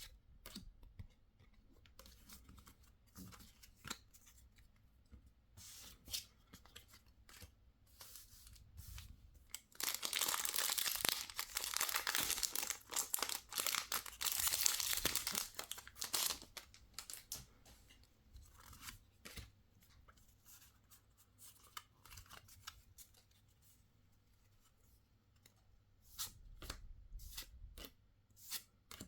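Packaging being torn open by hand: a rough tearing noise lasting about six seconds, starting about ten seconds in. Before and after it come scattered light clicks and rustles of handling.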